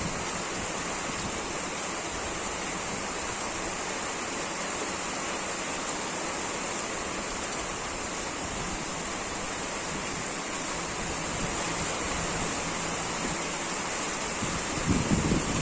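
Steady rain falling in wind, a constant even hiss. Near the end come a few low rumbling gusts.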